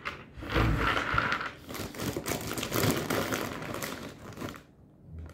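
Plastic bag of dry penne rigate crinkling and rustling as it is handled, stopping near the end.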